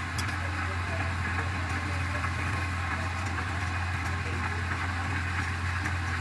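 Wood lathe running steadily with a constant low hum while a wad of fibre is pressed against the spinning turned spindle to burnish it.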